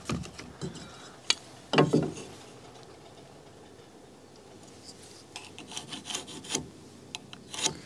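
Carpenter's pencil scratching layout lines onto a wooden post in short strokes, with a few knocks as a metal square is set down against the wood; the loudest knock comes about two seconds in.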